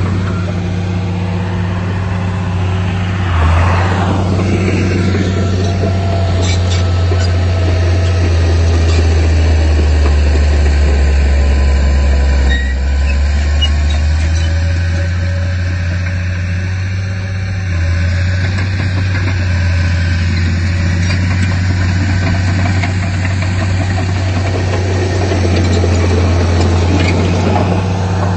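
Heavy diesel engine of earthmoving equipment running as a steady, loud low drone, its speed sagging and picking up again a few times.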